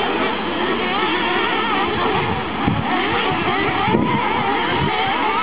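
Several small nitro engines of 1/8-scale RC buggies buzz high and rev up and down over one another, their pitch constantly rising and falling.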